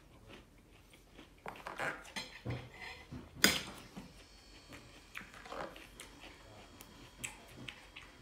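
A knife and fork clinking and scraping against a plate during a meal, with one sharp, loud clink about three and a half seconds in.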